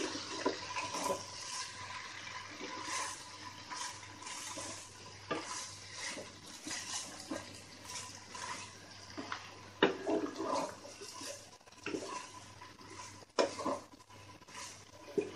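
Wooden spatula stirring penne pasta and chicken in a thick sauce in a large nonstick pot: wet, sloshing stirring with scattered knocks of the spatula against the pot.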